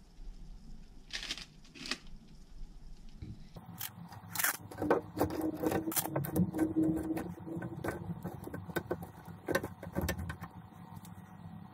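Frozen flounder pieces handled from a foam tray and laid into a stainless pot of liquid: a run of knocks, scrapes and small splashes, with a brief squeak partway through.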